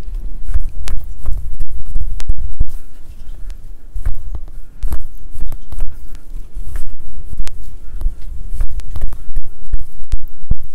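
A wooden skewer jabbed repeatedly into chunks of raw pork neck on a wooden cutting board: uneven dull thumps and scattered light clicks over a low rumble.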